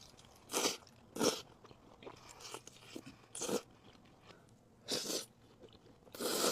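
Crunchy bites and chewing of a fried chicken tender: a series of short, crisp crunches, about six of them roughly a second apart.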